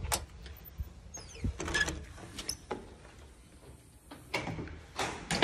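Metal security screen door and front door being unlatched and opened: scattered clicks, taps and rattles of the handle and latch, then a louder knock right at the end.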